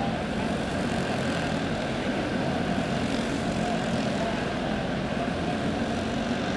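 Several single-cylinder OHV clone kart engines racing around a dirt oval in a large indoor hall, their overlapping buzz running steadily.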